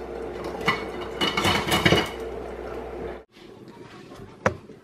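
Kitchen utensils (wooden and silicone spoons and metal tongs) clattering against each other as they are set into a utensil holder on a counter, for about three seconds; the sound then cuts off, and a single sharp click comes near the end.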